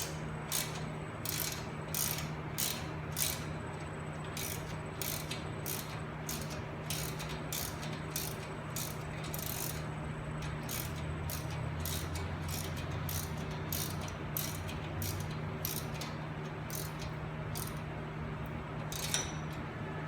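Ratchet wrench clicking in repeated strokes, about two or three a second, stopping shortly before the end, over a steady low hum.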